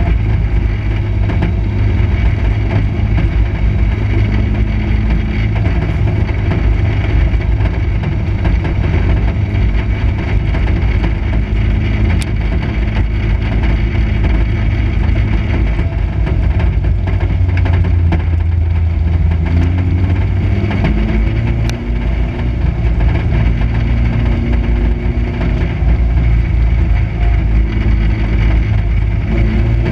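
Dirt-track race car's engine running hard under racing load, heard from inside the cockpit: a loud, steady drone whose note climbs in steps about twenty seconds in.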